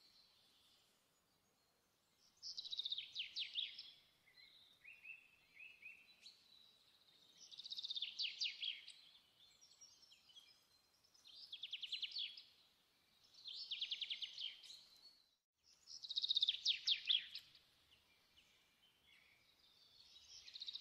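Songbird singing: short, rapid, high trilled phrases repeated every few seconds, with fainter chirps between them and a brief cut-out partway through.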